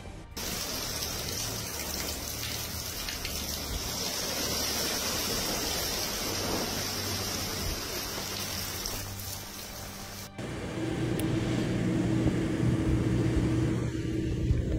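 Steady rain and wind noise of a storm over a low background music bed. About ten seconds in it cuts off abruptly, and the music comes forward with a fainter hiss.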